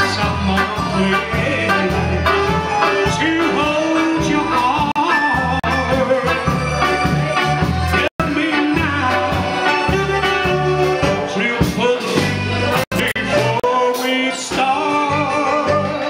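A live band plays a song with a man singing over electric guitar and bass notes. The sound cuts out for an instant twice, about 8 and 13 seconds in.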